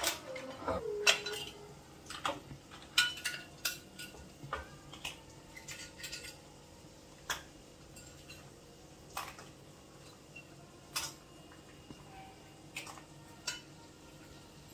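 Metal kitchen tongs clinking and clattering against a ceramic serving dish and a frying pan as boiled mud crab pieces are moved into the pan. Irregular clicks come thick in the first several seconds, then thin out to a knock every second or two.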